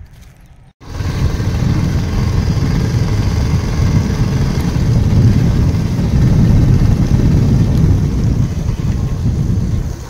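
Loud, steady rumble of riding along a road in a moving motor vehicle, starting abruptly about a second in.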